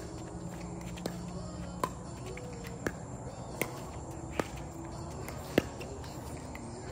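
Pickleball rally: six sharp pops of the plastic ball off paddles and court, roughly one a second, the last one loudest, over a steady low hum.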